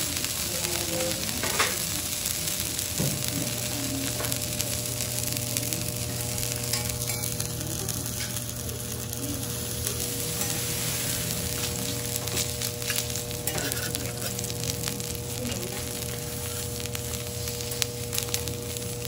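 A thick block of wagyu beef sizzling steadily as it sears in its own rendered fat on a flat steel teppanyaki griddle. A steady low hum comes in underneath about three seconds in.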